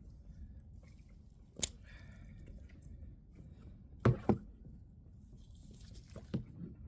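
A few short knocks over a low steady rumble; the loudest is a quick double knock about four seconds in.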